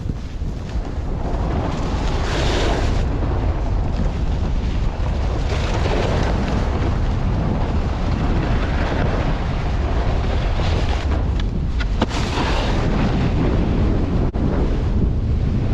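Wind buffeting the microphone of a moving snowboarder, with the board hissing over snow in surges, about two and a half, six and twelve seconds in.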